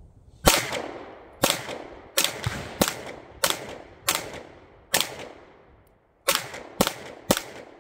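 Semi-automatic pistol fired about ten times in a steady string, roughly one shot every half second to second, with a gap of over a second before the last three; each shot trails off in a short echo.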